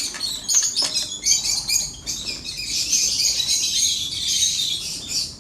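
A flock of small aviary birds chirping busily and continuously. There are a couple of short knocks in the first second.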